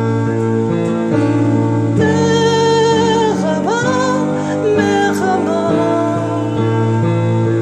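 A woman singing a slow melody of long held notes with vibrato over sustained instrumental accompaniment.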